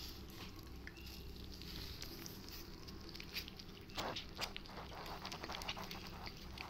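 Soft rustling and scratching of kittens and a hand moving in a cardboard box, with a louder brief rustle about four seconds in.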